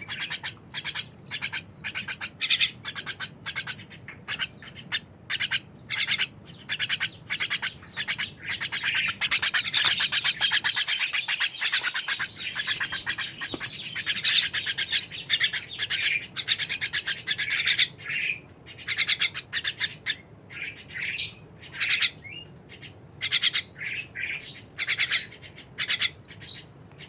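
Songbird (a kacer air) chirping in quick repeated sharp notes, running into a dense, continuous stretch of song in the middle, then back to spaced chirps.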